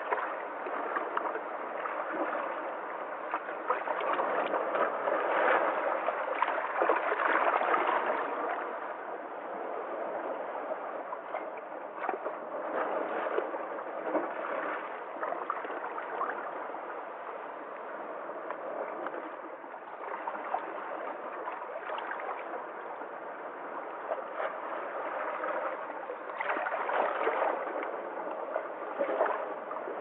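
Small sea waves washing and splashing among shoreline rocks: a continuous watery wash with brief splashes, swelling louder about four seconds in and again near the end.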